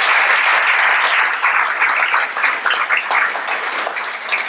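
Audience applauding: a dense burst of clapping that thins into scattered claps and fades away.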